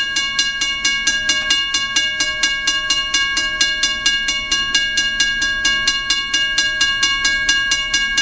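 Railroad crossing bell ringing rapidly and evenly, about five strikes a second, as the crossing signal warns of an approaching train.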